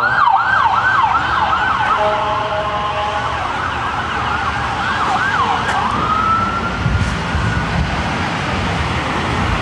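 Emergency-vehicle siren going by in a fast yelp, briefly switching to a steady tone about two seconds in. It then slows to a few wide sweeps and ends in one long rising wail that fades away.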